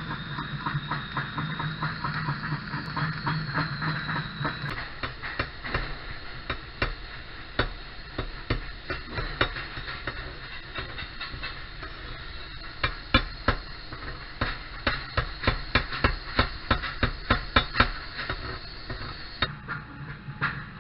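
A long run of sharp knocks, a couple a second, louder in the second half, over a steady machine hum.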